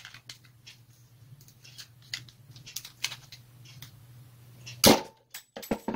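Small clicks and scrapes of a screwdriver prying at the switch inside an angle grinder's plastic motor housing to work it loose, with one loud sharp click about five seconds in. A low steady hum sits underneath.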